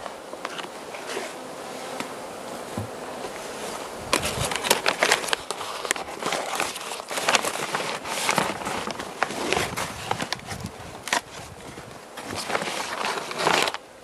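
Carniolan honey bees buzzing from the hive, under scrapes, knocks and rustles as the hive's roof is lifted off and a hive tool works at the insulation board beneath. The handling noises come in clusters from about four seconds in and are the loudest sounds.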